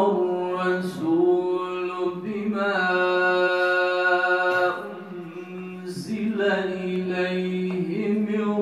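A male hafiz reciting the Qur'an in melodic tajweed style, the voice drawn out in long held, ornamented notes. Two phrases, with a short break about five seconds in.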